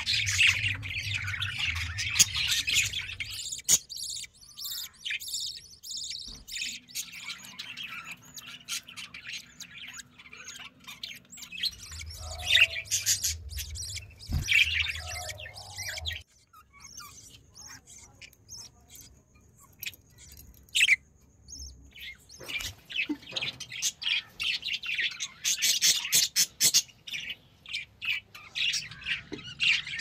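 Budgerigars chirping and chattering in quick, high cheeps that come in bursts, thinning out to a few scattered chirps around the middle.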